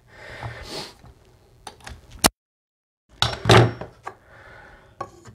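Clicks and knocks of carpentry tools on a wooden stair, with one duller, heavier thump about three and a half seconds in.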